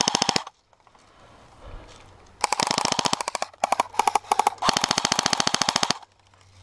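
Airsoft gun firing fully automatic bursts, rapid even clicking: a burst cutting off about half a second in, then after a pause a long burst, two short bursts and another long burst before stopping near the end.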